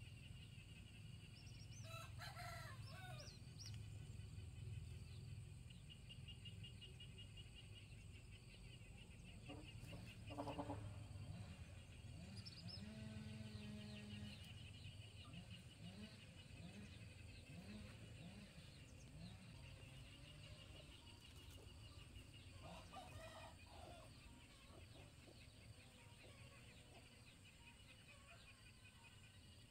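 Quiet rural ambience with a rooster crowing faintly in the distance a few times, loudest about ten seconds in.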